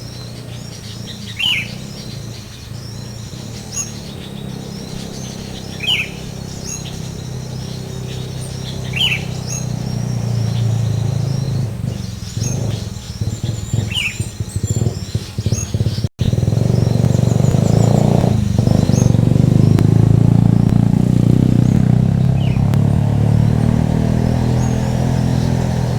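Small birds chirping, with a short falling call note repeated every few seconds and higher twittering around it. A low rumble grows under them and is loudest after a brief break about sixteen seconds in.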